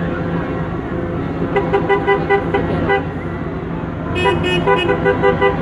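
City bus passing with its engine running, its horn sounding two quick strings of short toots, about five a second: one about a second and a half in and another near the end.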